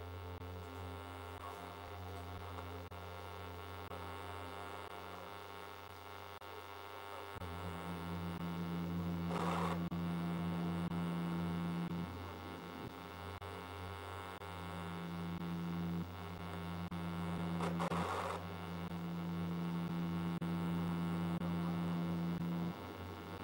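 A low steady hum with many overtones. About seven seconds in, a louder held low tone joins it and sounds in long stretches with short breaks. Two brief rushes of noise come through it.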